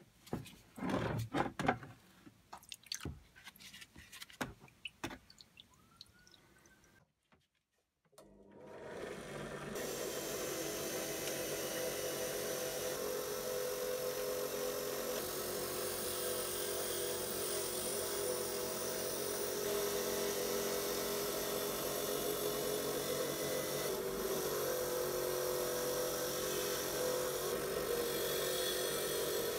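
Scattered knocks and clatter of parts being handled, then a bench drill press starts about eight seconds in and runs steadily, its spinning wire wheel brushing against a vintage foot pump's metal frame and lever to clean it.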